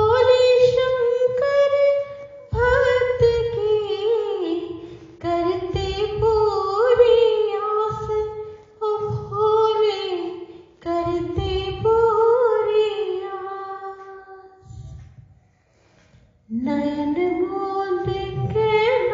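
A woman singing a Hindi devotional song to Shiva in long, ornamented phrases. She breaks off briefly near the end, then starts a new line.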